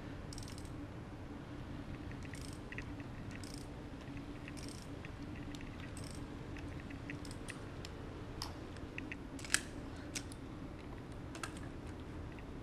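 Socket wrench clicking in short bursts, about once a second, as an expansion anchor bolt in a wall is tightened, followed by a few sharper metallic clicks.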